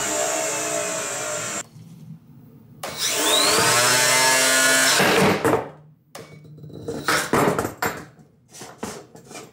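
Combat robot's weapon motor and 7.5-inch AR500 steel spinner blade whining as the blade winds down, cutting off under two seconds in. About three seconds in it spins up again with a steeply rising whine at about three-quarter speed, which stops suddenly around five seconds in. A string of sharp knocks and clatters follows.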